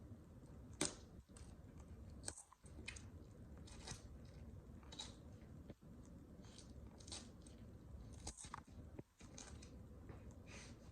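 Vegetables crunching and cracking as they are crushed under high-heeled boots: an uneven string of sharp snaps, the loudest about a second in.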